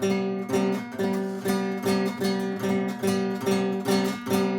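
Acoustic guitar strummed in a steady rhythm, repeating the same chord pattern.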